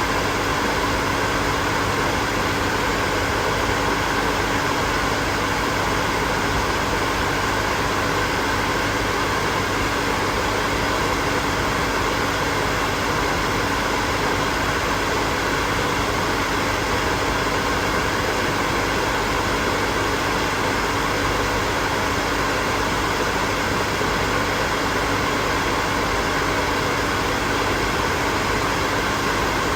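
Hair dryer running continuously: a steady rush of blown air with a faint constant motor hum, unchanging throughout.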